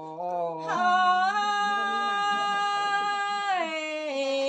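Unaccompanied Thái folk singing: a voice steps up into one long held note, then glides down to a lower note near the end.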